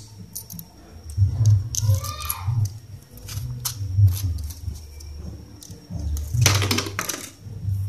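Small clicks and scrapes of the soldering iron's metal tip barrel and ceramic heating element being handled and fitted together, over low thuds from the hands, with a longer, louder scrape about six seconds in.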